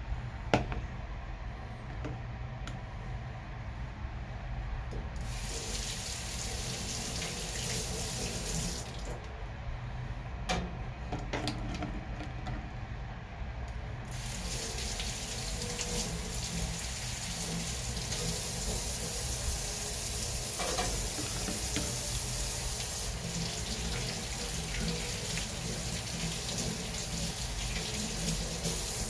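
Kitchen tap running into a sink: on for a few seconds, then off, then on again for a longer stretch. A few sharp knocks come in the gaps, the loudest just after the start.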